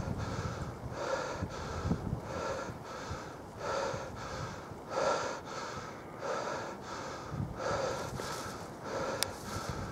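A person breathing heavily close to the microphone: rhythmic in-and-out breaths, about one breath a second, with gusts of wind buffeting the microphone. There is one sharp click near the end.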